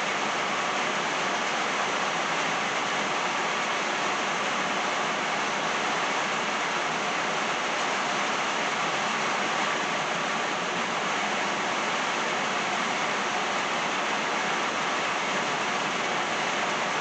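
Steady rain shower falling on trees and a driveway, an even hiss with no thunder.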